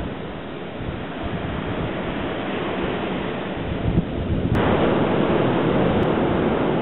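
Wind rushing over the microphone with sea surf behind it, a steady noisy rush that jumps abruptly louder about four and a half seconds in.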